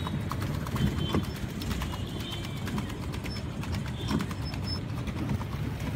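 Small boat under way on a lake: a steady low rumble of water and wind, broken by irregular knocks and clicks from the boat, with a few short high chirps.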